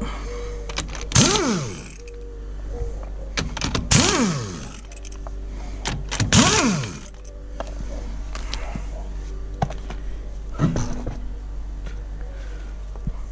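Handheld power tool spinning wheel bolts out of a car's hub, three short runs about a second, four and six and a half seconds in, each speeding up and then winding down, with a knock near the end.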